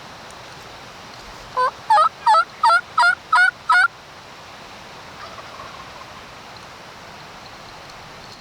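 A series of seven turkey yelps in quick, even succession, about three a second, each note breaking sharply in pitch. The yelping starts about a second and a half in and stops near the middle.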